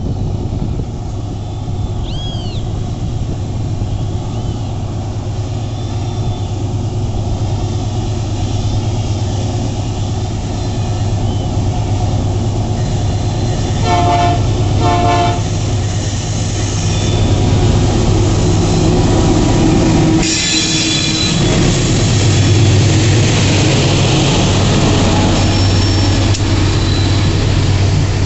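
Diesel freight locomotives working hard up a grade, their engine drone growing louder as the train approaches. Two short horn blasts sound about halfway through. The locomotives then pass, followed by the rolling rumble of the loaded wagons on the rails.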